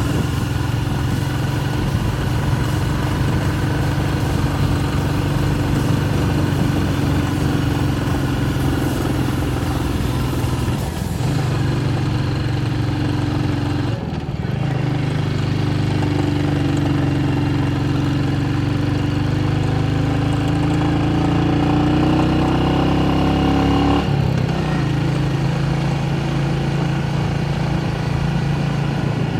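Motorcycle engine running at road speed, with brief breaks about a third of the way in, about halfway and near the end, like gear changes. Between the last two breaks the engine note slowly rises as it picks up speed.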